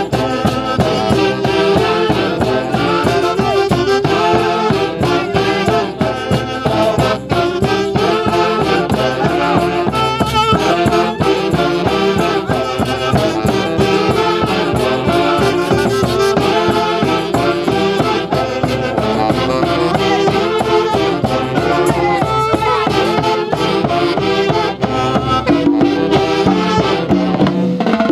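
Instrumental music by a Peruvian orquesta folklórica: a massed section of saxophones and clarinets playing the melody together over a steady beat from drum kit, congas and timbales.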